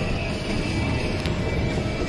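Background music over the steady low rumble of a small park train running on its track.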